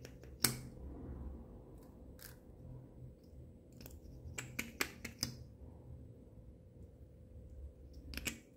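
Plastic lip gloss wand being worked in and out of its tube, giving sharp plastic clicks: the loudest about half a second in, a quick cluster around four to five seconds, and another pair near the end.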